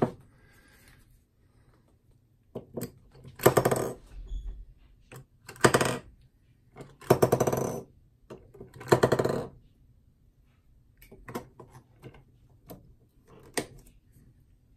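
AA rechargeable batteries dropped one at a time into the battery compartment of a Sea & Sea YS-D2 underwater strobe. Four clattering rattles as each battery slides in, then a few small clicks as the compartment cap is handled.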